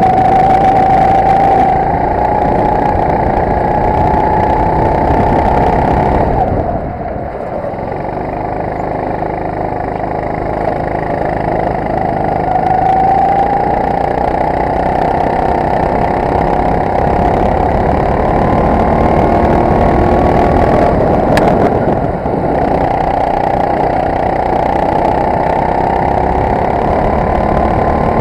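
Honda-engined go-kart running hard, heard from on board; its engine note rises and falls through the corners. It drops away briefly about a quarter of the way in as the throttle is lifted, then climbs slowly. A single sharp click comes about three-quarters of the way through.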